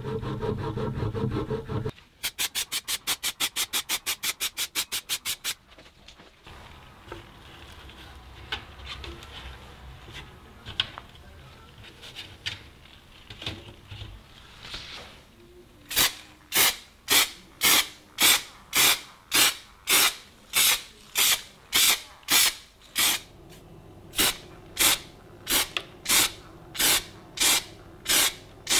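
A hand file rubbing on a metal crank arm, then a few seconds of fast, even strokes. After a quieter stretch of small handling sounds, the second half is a string of short, even bursts from an aerosol spray-paint can, about three every two seconds.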